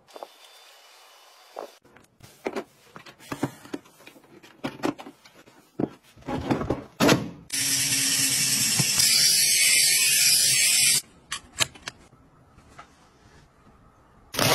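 Scattered clicks and knocks, then about seven and a half seconds in a hand-held electric spin scrub brush runs loud and steady, scrubbing a foam-covered gas stovetop with a hissing whirr. It stops suddenly about three and a half seconds later, followed by a few more clicks.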